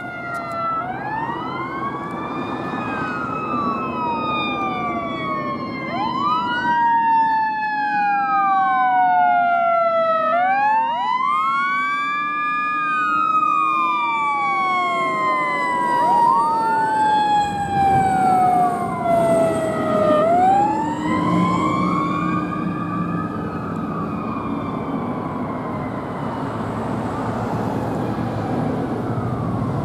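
Fire engine running under emergency with two sirens together: one wailing up and down about every five seconds, and a second that winds up slowly and coasts down over several seconds. The truck's engine and tyres are louder as it passes about two-thirds of the way through, and the sirens die away over the last few seconds.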